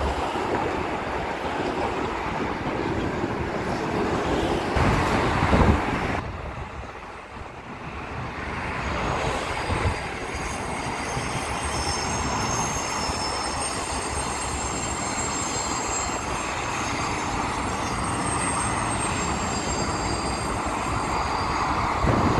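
Electric commuter train running on the tracks, a steady rumble of wheels on rail, with thin high wheel squeal setting in about halfway through.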